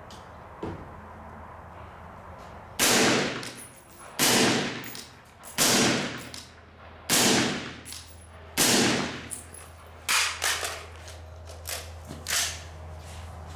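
Suppressed AR-15 rifle firing five single shots, about a second and a half apart, each a sharp report with a short ringing tail. Near the end come several quieter sharp cracks.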